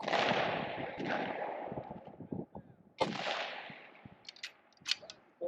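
Two precision rifle shots about three seconds apart, each a sudden crack followed by a long echo that fades over a couple of seconds. A few short sharp clicks sound after the second shot.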